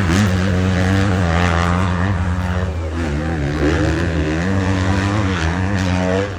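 450cc motocross bike engines running hard at high revs. The engine note dips about halfway through and then rises again.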